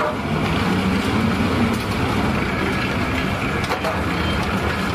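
Steady engine rumble with a low hum running evenly throughout.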